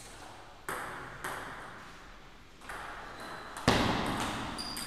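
Table tennis rally: sharp clicks of the ball striking rackets and bouncing on the table, the loudest about three and a half seconds in, each followed by a short ring from the hall.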